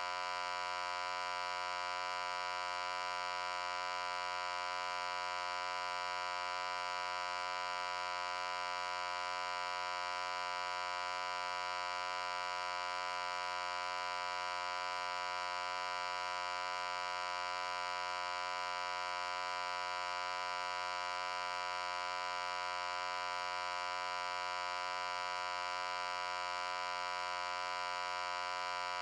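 Loud, steady, buzzy hum: one unchanging pitched drone with many overtones, strongest in the mid range.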